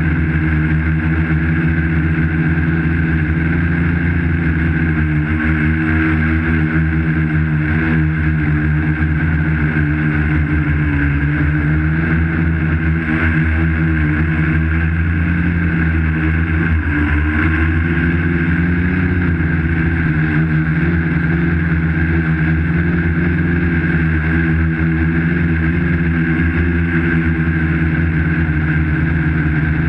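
Quadcopter's electric motors and propellers running at close range, heard through the GoPro mounted on the craft: a loud, steady hum of several tones whose pitch wavers slightly as it flies.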